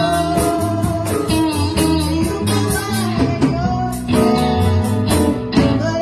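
Live blues band playing a song, with guitar to the fore over a steady beat.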